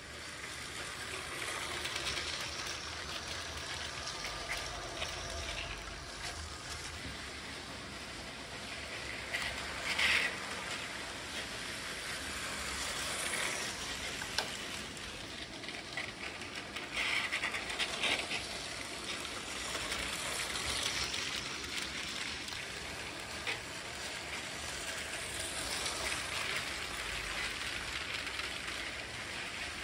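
Lego City cargo trains running on plastic Lego track, a steady rattle of plastic wheels on the rails, with louder clattering about ten seconds in and again around seventeen to eighteen seconds in.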